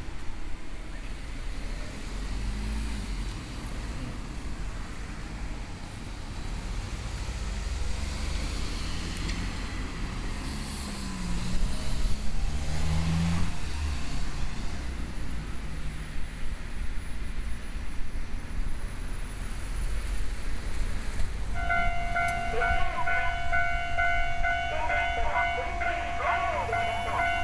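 Road traffic rumbling past a railway level crossing, with a vehicle going by about halfway through; about 22 seconds in, the crossing's warning alarm starts and sounds steadily, the signal that a train is approaching.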